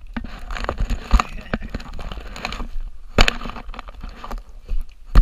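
Scraping, scuffing and crackling against rough tree bark while climbing a leaning trunk, as hands, feet and the camera rub on the bark. Several sharp knocks come through, the loudest about three seconds in and at the very end.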